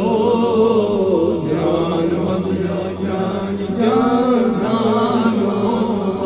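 A man's voice singing a Kashmiri naat in long, wavering drawn-out phrases over a steady drone. The singing eases near the middle and rises again about four seconds in.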